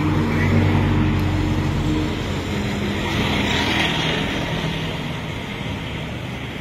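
A car drives past close by, its engine sound fading away over the first few seconds, followed by a steady hum of street traffic.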